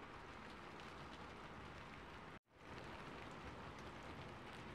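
Soft, steady rain falling, a background rain recording. About halfway through it cuts out for an instant and fades straight back in.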